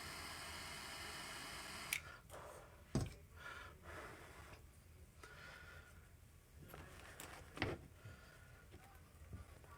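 A steady hiss that stops about two seconds in, then a few sharp knocks and clicks with soft rustling as small items are handled on a work surface.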